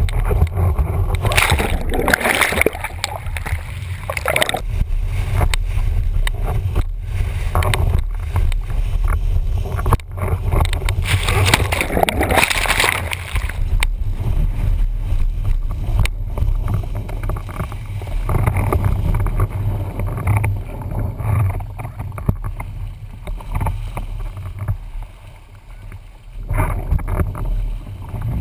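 Wind buffeting a camera microphone mounted on a windsurf rig, over the rush and hiss of water as the board speeds across choppy water. Louder surges of spray come in a couple of seconds in and again around the middle, with a short lull a few seconds before the end.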